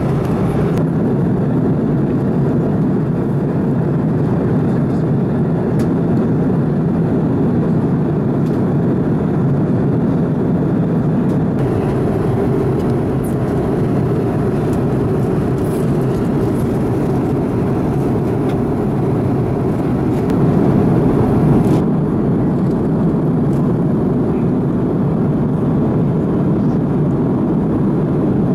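Airbus A330-200 cabin noise in cruise: the engines and airflow make a steady, deep, even rush with no let-up.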